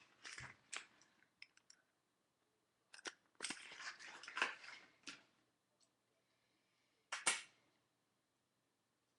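Packaging of Zippo flint packs being handled and opened: crackling and crinkling in two bursts, then a sharp snap about seven seconds in.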